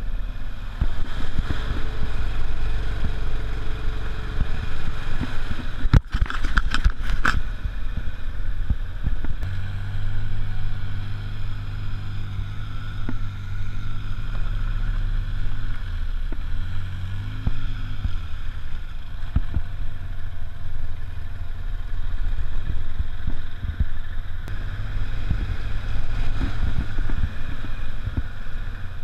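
ATV engine running at low trail speed, with knocks and rattles as the machine rides over rough ground. A burst of sharp clatters comes about six seconds in, and the engine note drops and then climbs again a little past the middle.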